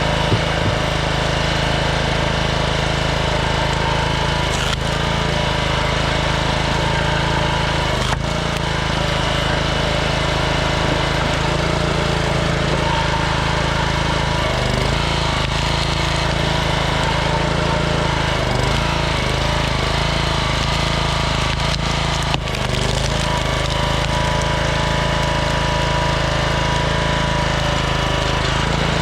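Small gas engine of a 27-ton Troy-Bilt log splitter running steadily, with a few brief sharp clicks.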